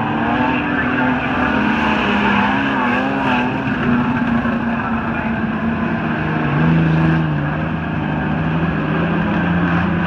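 Several streetstock speedway cars racing, their engines revving and easing off as they lap the track.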